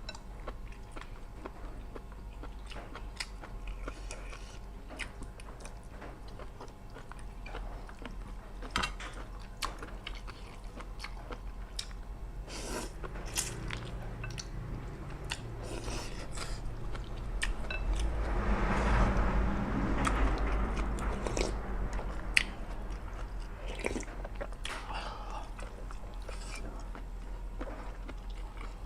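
Close-miked chewing and biting of crunchy food, with crisp crackles scattered throughout and a louder, noisier stretch about two-thirds of the way through.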